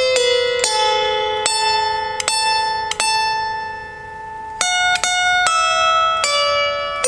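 Slow harp melody of single plucked notes, about nine in all, each left to ring out, with a pause of a second or so near the middle.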